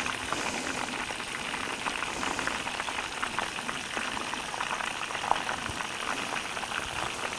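Battered crappie pieces deep-frying in hot oil in an electric skillet: a steady sizzle full of small crackles, with one louder click a little past five seconds in.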